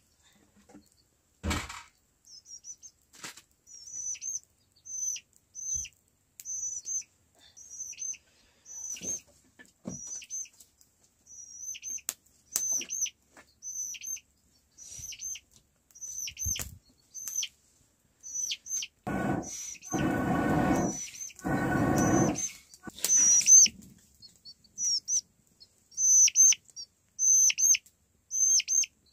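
Young domestic chicks peeping: short, high, downward-flicking peeps repeating about once or twice a second. A louder, lower call in three parts comes about two-thirds of the way through, and there is a single knock near the start.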